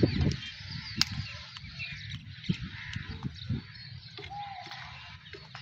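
Small birds chirping in the background, with scattered light clicks and one sharper click about a second in.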